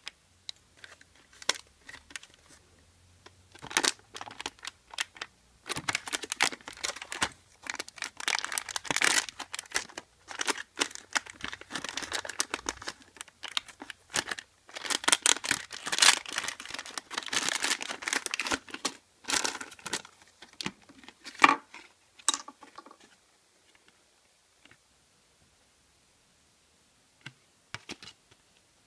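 Foil blind-bag packet crinkling and tearing as it is handled and ripped open, in quick irregular runs of crackle that die away about three-quarters of the way through. A few light clicks follow near the end.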